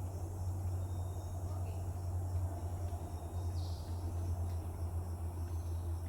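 Forest ambience: a steady low rumble under a faint high hiss, with a short faint chirp about three and a half seconds in.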